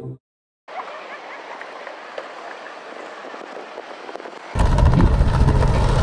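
Faint hiss with light crackling, then, about four and a half seconds in, a skateboard's wheels rolling loudly over paving stones with clicks from the joints.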